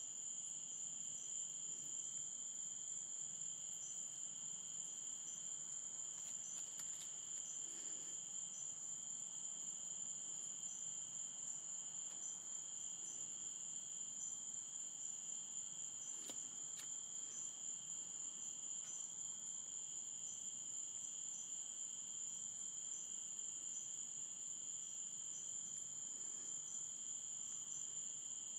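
Night insect chorus: crickets trilling continuously in two steady high-pitched bands, with short, regular chirps from another insect over them.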